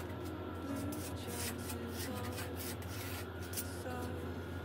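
Faint pencil scratching and rubbing on a painted wall, a few separate strokes, over a steady low hum.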